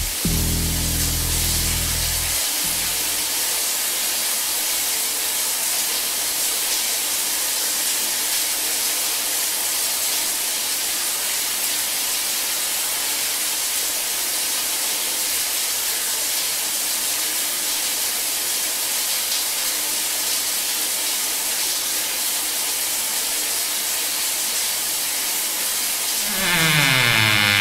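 Horror film soundtrack: a low musical drone cuts off about two seconds in, leaving a steady, even hiss. Near the end a pitched sound sweeps upward and swells.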